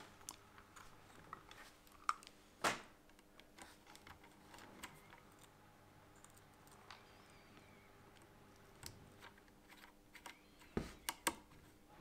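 Scattered small clicks and ticks of thin stranded wires and fingers working against a plastic screw-terminal block on a model locomotive's sound decoder, with a quick run of three or four sharper clicks near the end as a small screwdriver is set to the terminal screw.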